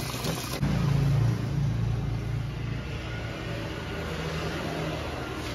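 A motor running with a low steady hum, loudest about half a second in and then slowly fading.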